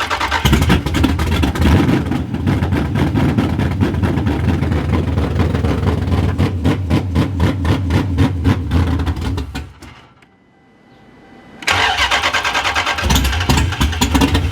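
Dodge Scat Pack's 6.4-litre HEMI V8, fitted with a big aftermarket cam and a freshly loaded tune, cranking and stumbling through its first start attempts, running unevenly. About ten seconds in it dies and goes quiet. Under two seconds later it is cranked again.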